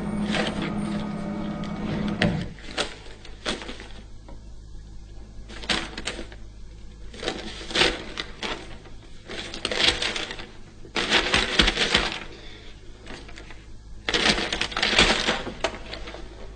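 Sheets of paper being unwrapped, unfolded and handled, rustling in a series of short crackling bursts. A sustained music chord sounds at first and stops about two seconds in.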